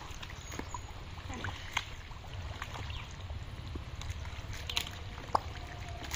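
Wet mud squelching and sloshing as hands grope through the thick mud of a drained pond, with scattered short splats, the sharpest about five seconds in, over a steady low rumble.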